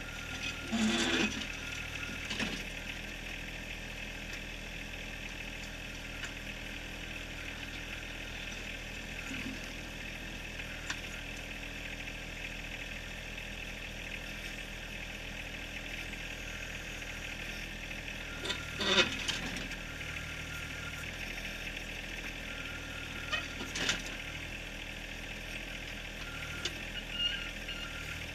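John Deere 1023R compact tractor's small three-cylinder diesel running steadily, working the backhoe. Its steel bucket knocks and scrapes against rock a few times, loudest about two-thirds of the way through.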